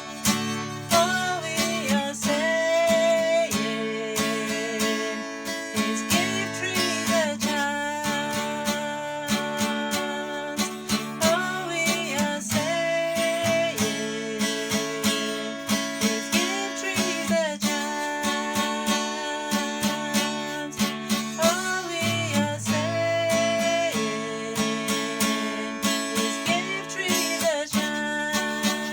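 Music: strummed acoustic guitar with a melody line over it, in a steady beat.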